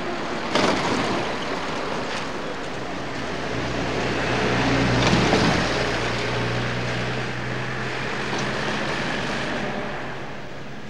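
A motor vehicle driving past on a dirt road: engine hum and road noise that build to their loudest about halfway through, then fade.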